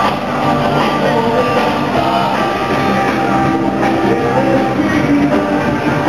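A rock song with singing and guitar.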